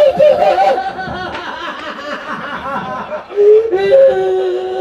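A single person laughing over a microphone in rhythmic bursts, loudest in the first second; from about three seconds in, a long drawn-out held vocal cry.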